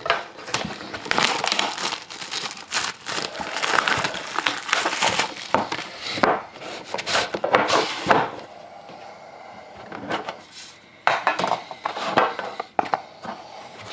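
Plastic wrapping on a sealed trading card box crinkling and tearing as it is stripped off by hand, with the box being handled. The crackling is dense for about the first eight seconds, eases off, then comes back in a few short bursts near the end.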